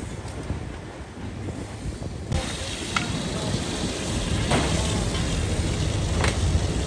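Fire hose spraying water onto a burning trailer: a steady rushing hiss that comes in about two seconds in, over a low rumble.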